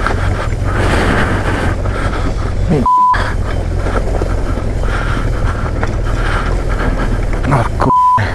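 Honda Transalp adventure motorcycle engine running at low speed over a rough, rocky dirt track, with tyre and gravel noise. Twice, about three and eight seconds in, a short bleep briefly replaces all other sound, like a censor bleep over words.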